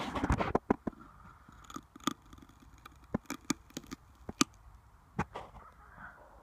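Homemade knife striking into a wooden board, a quick run of hard blows in the first half second, then scattered sharp clicks and cracks as the blade is worked against the splintered wood.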